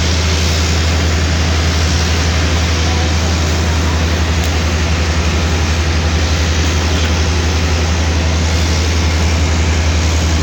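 Diesel engines of heavy road-paving machinery running steadily, a loud, constant low drone with a fast even throb.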